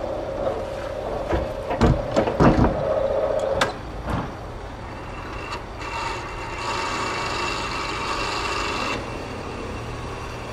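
Automatic railway crossing reopening: a steady warning tone with a run of loud metal clunks in the first few seconds, stopping with a click. Then the barrier arm's drive runs for about three seconds as the arm swings up.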